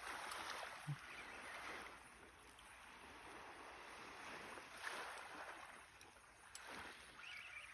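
Faint sea waves washing in against the shore, swelling twice and falling back.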